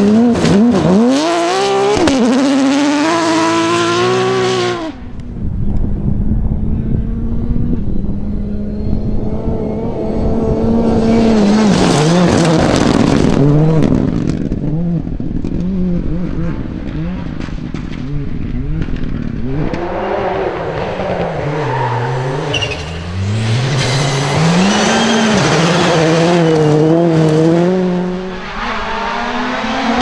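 Rally cars driven flat out one after another on a gravel stage. A Porsche 911 GT3's flat-six revs hard up through the gears at the start, then turbocharged four-cylinder rally cars such as a Hyundai i20 R5 accelerate, lift and shift, their engine notes climbing and dropping with each gear change.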